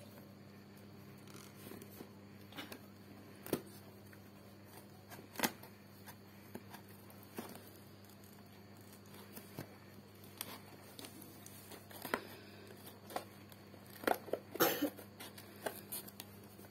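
Small scissors snipping and cutting through packing tape on a cardboard parcel, with crinkling of the tape wrapping. The snips and rustles come irregularly, busiest near the end.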